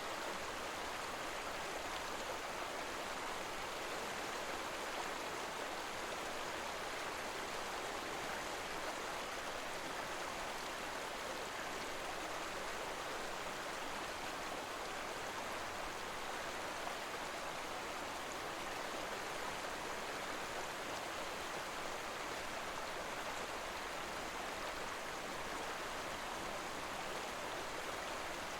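Waterfall cascades rushing steadily: an even, unbroken hiss of falling water.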